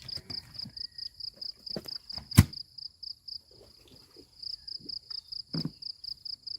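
An insect chirping in a steady high-pitched pulse, about six chirps a second, pausing briefly past the middle. A sharp knock about two and a half seconds in is the loudest sound, with a softer knock near the end.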